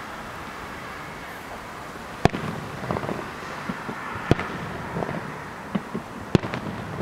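Distant aerial firework shells bursting: three sharp booms about two seconds apart, the first a little over two seconds in, each followed by echoing rumble and smaller pops, over a steady background noise.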